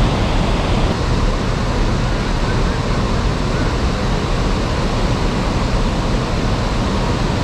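River water rushing over a dam or rapids: a loud, steady, unbroken rush.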